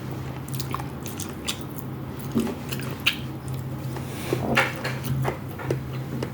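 Close-miked eating: chewing with irregular mouth clicks and smacks, over a steady low hum.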